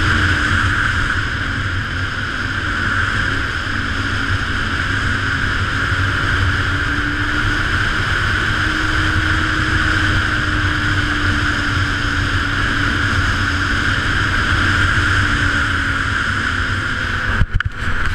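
Ski-Doo Renegade 900 ACE snowmobile's three-cylinder four-stroke engine and track running at a steady cruising speed, with a steady whine and slow, slight shifts in engine pitch. The sound briefly drops out a few times near the end.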